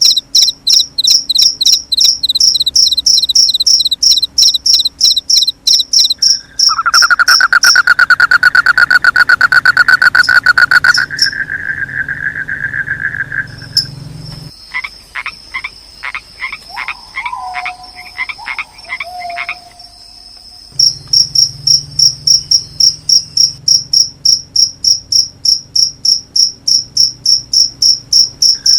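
Field crickets chirping in fast, high-pitched pulses. In the middle they give way to frogs: first a loud, lower trilling call, then a string of short croaks. The crickets come back after that. The sounds change over abruptly, as if spliced.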